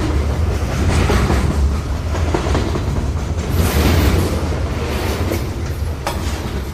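Model diesel locomotive with a coach running along its track: a steady low rumble with scattered clicks from the wheels over the rail joints.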